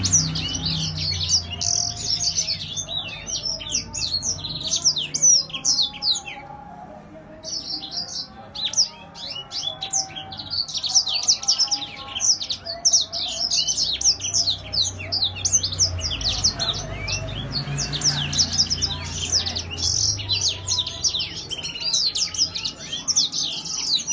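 Caged seedeater finch singing a long, fast song of high twittering notes, breaking off briefly about six seconds in and then resuming.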